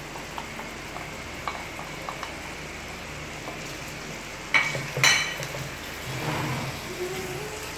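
Raw chicken pieces with green chillies and garlic-ginger paste sizzling steadily in hot oil in a wok, stirred with a wooden spatula that clicks lightly against the pan. Two louder knocks come about halfway through.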